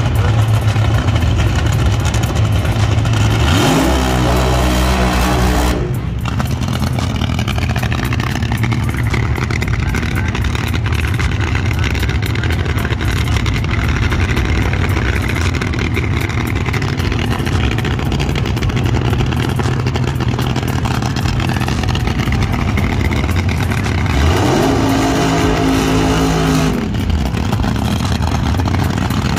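Loud drag racing car engines running at the starting line, a deep steady rumble under everything. Twice an engine revs up, climbing in pitch for a couple of seconds and then cutting off sharply, about four seconds in and again near the end.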